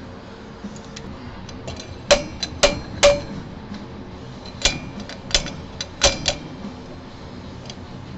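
Powerbuilt slide hammer worked by hand on a bearing puller hooked inside a stuck front-wheel bearing outer race: about nine sharp metallic clanks with short ringing, in irregular bunches starting about two seconds in, as the weight slams against its stop to jerk the race out.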